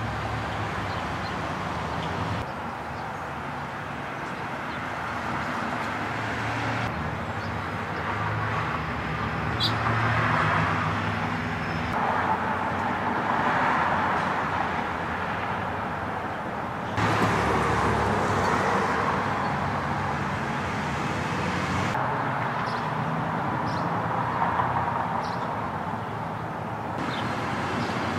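Outdoor road-traffic noise: a steady rush of passing cars with a low hum. It changes abruptly every four to five seconds as one short recording cuts to the next.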